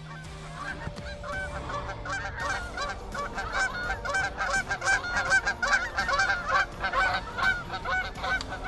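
A flock of Canada geese honking, many overlapping calls that grow louder over the first few seconds as the birds come in to the decoys.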